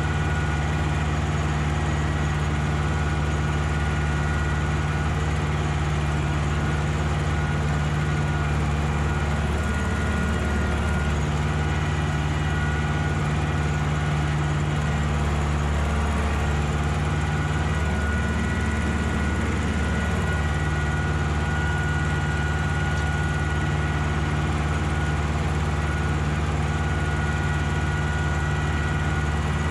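Ursus tractor's diesel engine running steadily under load while tilling a field, its note wavering briefly twice.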